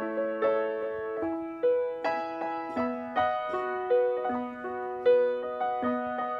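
Grand piano played solo: a slow melody of single notes over held lower notes and chords, a new note struck every half second to a second, each ringing out and fading.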